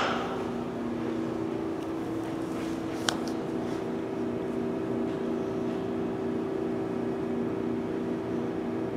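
Steady machine hum made of several low, even tones, with one sharp click about three seconds in.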